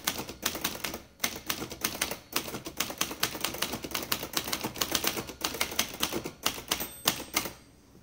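Brother Webster XL-500 manual portable typewriter being typed on at a quick, even pace: a rapid run of type bar clacks that stops shortly before the end. Its type bar rest is lined with dum-dum putty to deaden vibration carried through the sheet-metal body.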